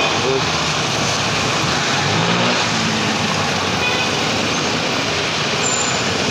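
Busy street traffic: motorcycles and cars passing close by, a steady mix of engine and tyre noise, with one engine standing out briefly about two seconds in.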